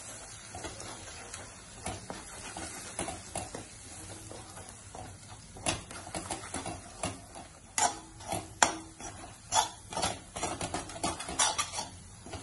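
Spatula scraping and tapping against a frying pan as egg is scrambled with chopped vegetables. The clicks are irregular, growing louder and quicker about halfway through.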